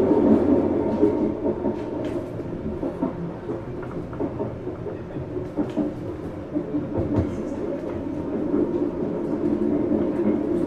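Subway train running on the track: a steady rumble with scattered clicks of the wheels. It eases off through the middle and builds again near the end.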